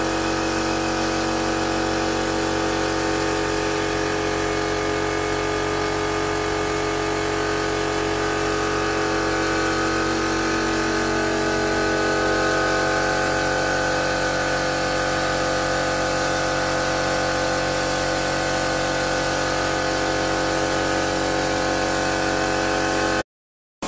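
An air compressor runs steadily under the hiss of a compressed-air spray gun spraying the wall. The sound cuts off abruptly near the end.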